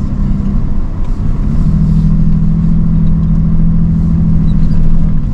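A two-wheel-drive vehicle's engine running hard under throttle on an off-road track, with a steady low rumble beneath. The engine note dips about a second in, then rises and holds steady.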